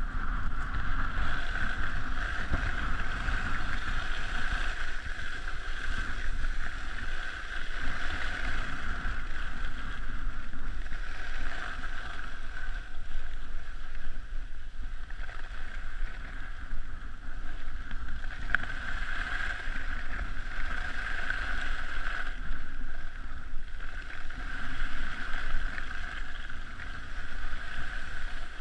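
Steady rushing hiss of skis sliding over packed snow on a downhill run, with low wind buffeting on the microphone.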